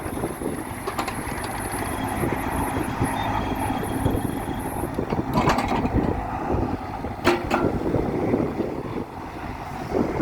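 Bobcat E26 mini excavator running, its diesel engine and hydraulics making a steady mechanical noise with a thin high whine over the first half. Two sharp metallic knocks stand out about five and a half and seven seconds in.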